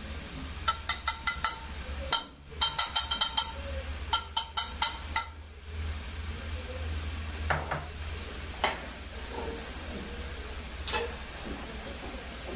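A small utensil tapped and scraped against a ceramic cup, knocking butter into a frying pan: two quick runs of ringing clinks in the first five seconds. A few single knocks of utensil or pan follow, over a steady low hum.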